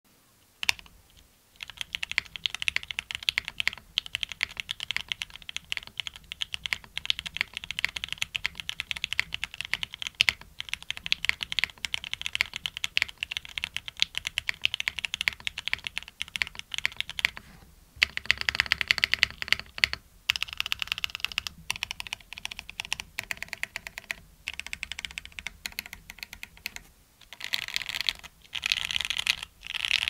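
Typing on a foamless Mode 65 mechanical keyboard with relubed Gateron Oil King linear switches, an isolated top-mounted carbon fiber plate and GMK ABS keycaps. A single keystroke comes first, then fast continuous typing from about two seconds in, broken by a few short pauses.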